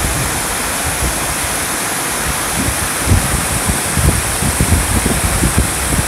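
Water pouring over a stepped stone weir and down a tall waterfall, giving a steady rushing noise. Irregular low rumbles of wind on the microphone come in from about halfway through.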